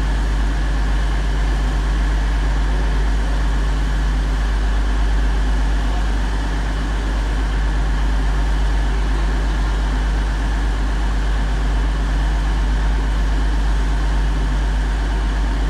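Stationary diesel passenger train idling, a loud steady deep engine drone with a constant low hum.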